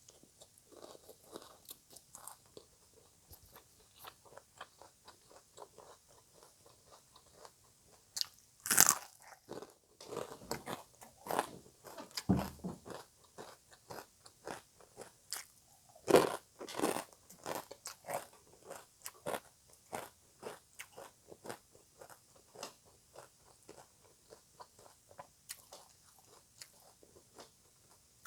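Close-miked chewing and crunching of som tam, shredded green papaya salad: a steady run of short, crisp crunches with two louder bites about nine and sixteen seconds in.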